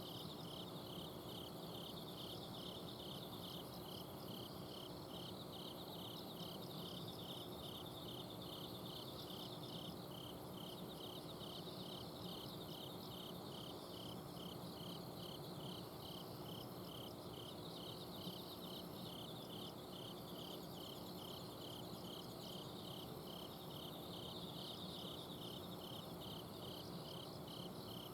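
Autumn crickets and other insects chirping, one sounding a steady even chirp about twice a second over others trilling higher. A faint steady hum of an outdoor air-conditioner unit runs underneath.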